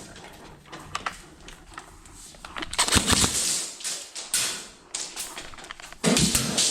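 Airsoft guns firing in short rapid bursts, a fast clicking rattle about three seconds in, again halfway through, and again near the end, with quieter tapping between.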